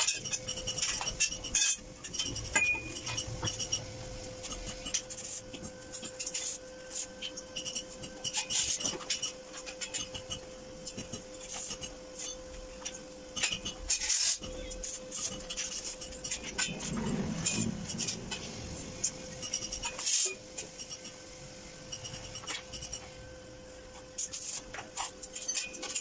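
Stainless steel pipes and square tubing being handled and set down on a concrete floor: scattered metallic clinks and knocks, over a steady hum.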